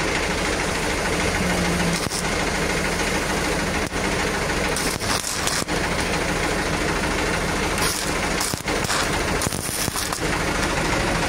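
Electric arc welding crackling and sizzling over a steadily running engine, the welding hiss flaring up a few times in the middle and later.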